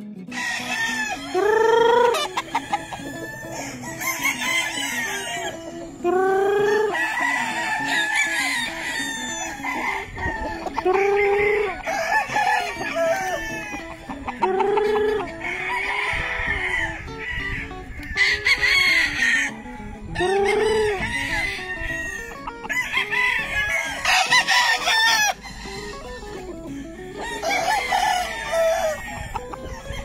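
Several gamecock roosters crowing, one after another, about every two to three seconds, some crows overlapping.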